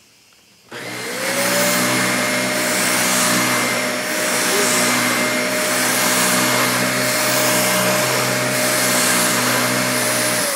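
Dyson Ball Animal+ upright vacuum switched on about a second in, its motor whine rising quickly to a steady pitch and running loud as it is pushed back and forth over a rug. The cleaner head is correctly reassembled, so it moves very easily over the rug.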